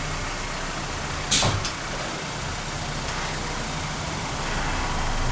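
Car engine running at idle after being started once the fresh oil is in, the step where the oil filter and drain plug are checked for leaks. About a second in there is a single short, loud, sharp noise.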